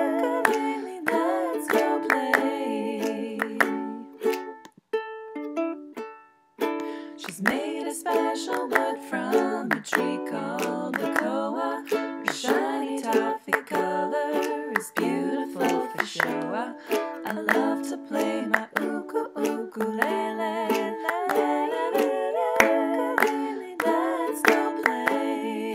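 Ukulele strummed in an instrumental break of an amateur home-recorded song. The chords are struck in a steady rhythm, drop out for a moment about five seconds in, then pick up again.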